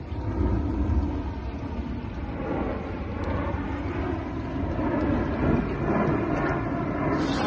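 Jet noise from a nine-ship formation of Dassault/Dornier Alpha Jet trainers flying overhead. It is a steady low rumble without speech that grows louder toward the end as the jets come nearer.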